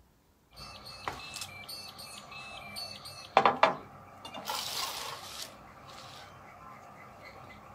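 Birds chirping with repeated high notes while plastic seedling pots and a plastic tray are handled on a glass-topped table. A few sharp knocks come about three and a half seconds in, the loudest sound, followed by about a second of rustling.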